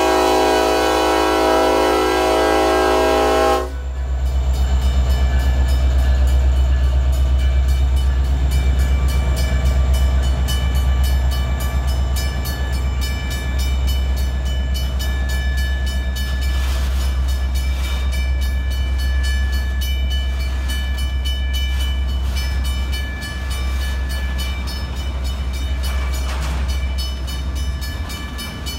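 A Union Pacific SD70AH diesel locomotive's horn sounds a steady chord that cuts off about three and a half seconds in. After it comes the low rumble and clatter of the locomotive and auto-rack freight cars rolling past at close range.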